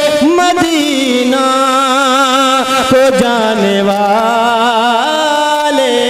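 A man's solo voice singing a naat into a microphone, drawing out long held notes whose pitch wavers and slides between them.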